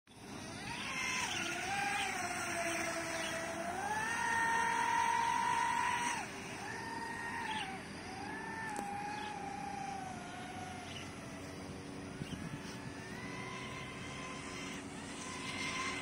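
Remote-control racing boat's motor running at high revs, its whine rising and falling as the boat speeds up and slows through turns. The pitch is highest and steadiest about four to six seconds in, then drops and wavers.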